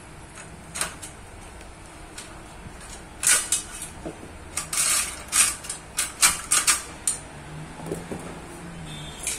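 Sharp metallic clicks and scrapes from hands and tools working on a bicycle gear: one click about a second in, then a quick run of a dozen or so between about three and seven seconds in, and one more near the end.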